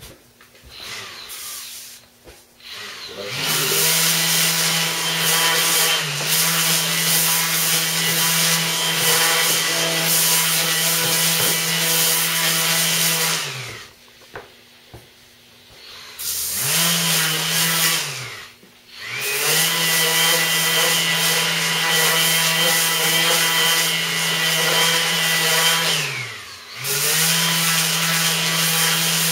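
Small lightweight electric palm sander with a round stick-on sanding disc, switched on and off four times. Each run hums steadily with the pad grinding against the wooden bow limb tip, then winds down with falling pitch; the longest run is about ten seconds. The sanding is bevelling (trapping) the limb tip.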